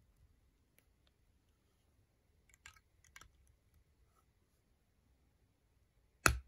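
Plastic LEGO bricks clicking as they are pressed onto each other's studs by hand: a few faint ticks, a small cluster of clicks about three seconds in, and one loud sharp snap near the end.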